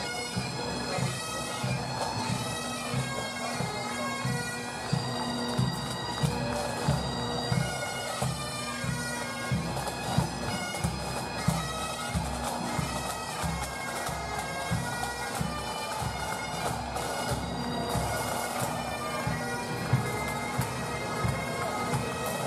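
Pipe band playing on the march: bagpipes sounding a tune over their steady drone, with a bass drum beating time.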